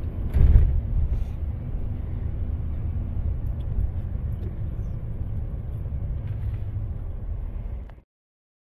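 Low, steady rumble of a moving truck heard from inside its cabin, with a louder jolt about half a second in; it cuts off suddenly near the end.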